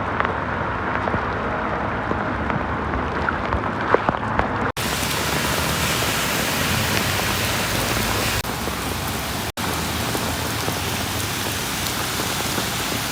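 Heavy rain pouring down, a dense steady hiss with small drops splashing in the first few seconds. The sound breaks off abruptly twice, about five and ten seconds in, and after the first break the hiss is brighter.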